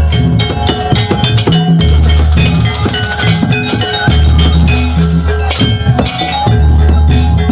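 Javanese jaranan gamelan music played loudly: kendang hand drums beating over ringing metallophones and gongs, with a deep low boom returning roughly every two seconds.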